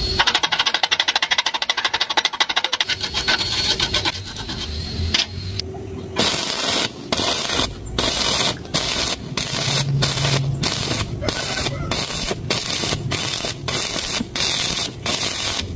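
Stick-welding arc crackling and hissing, with rapid crackle for the first few seconds. After that the arc sound is cut by short, regular gaps about twice a second.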